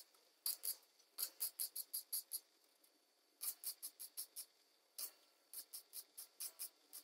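Electric arc welding on a steel chassis frame: the arc crackles in quick pulses, about six a second, in several short runs with brief pauses between them, as the welder stitches the seam.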